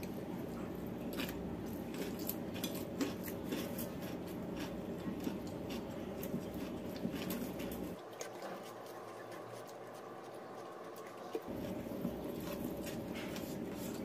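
Close-up eating sounds as rice and fried fish are eaten by hand: chewing, lip smacks and small clicks scattered throughout, over a steady low hum that drops out for a few seconds past the middle.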